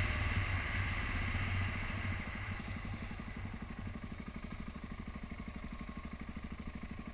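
2012 BMW G650GS Sertao's 652 cc single-cylinder engine running at low revs as the bike rolls slowly along a dirt track. Its even, rapid pulsing beat grows plainer as the wind noise fades.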